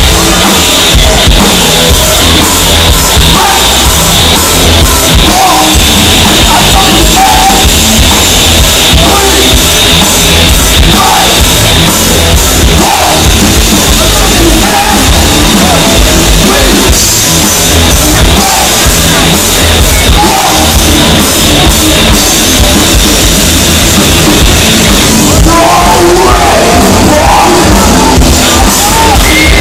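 Live rock band playing loud, with electric guitars and a drum kit and a voice singing over them; the vocal line comes through more strongly near the end.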